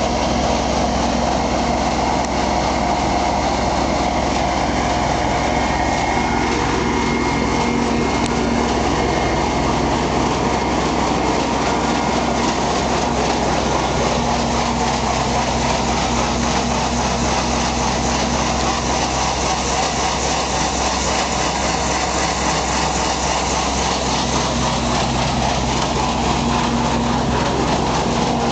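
Diesel engine of a 1979 Kenworth W900 truck running steadily at an even speed, with no revving.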